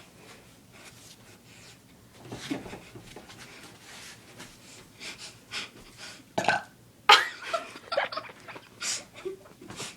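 A person burping several times: a weaker burp about two and a half seconds in, then a run of loud short burps from about six to nine seconds in.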